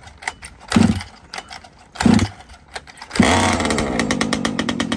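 Recoil pull-starter of the two-stroke petrol engine in an HPI Baja 5B 1/5-scale RC buggy, yanked twice. About three seconds in the engine fires and runs with a rapid, throaty exhaust note: the first start of a newly swapped-in, more powerful engine.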